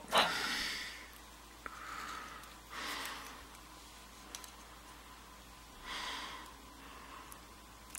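Three soft breaths about three seconds apart, with a few faint ticks in between.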